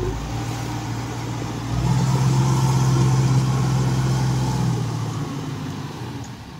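Engine of a tracked rice carrier loaded with rice sacks, running steadily as it drives past: it grows louder about two seconds in, then fades away near the end.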